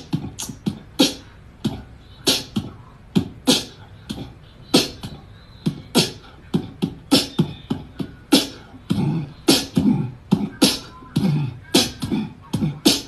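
A person beatboxing: an irregular string of sharp percussive mouth sounds, kick-like and snare-like hits, about two or three a second.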